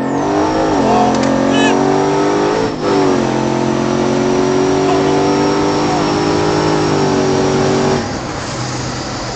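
Twin-turbocharged Hemi V8 of a Jeep SRT8 pulling hard at full throttle from a roll, with a thin high whine above the engine note. It dips briefly for a gear change about three seconds in, and the engine note drops away about eight seconds in as the throttle is lifted.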